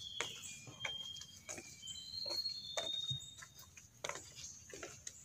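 Footsteps on the wooden planks of a boardwalk, roughly two a second, under a bird's singing: a string of short, thin, high whistled notes at slightly different pitches through the first three seconds or so.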